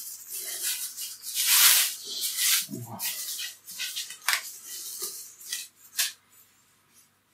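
Irregular rustling and scraping from hands working dough and utensils on a floured kitchen table, with a few sharp clicks and knocks.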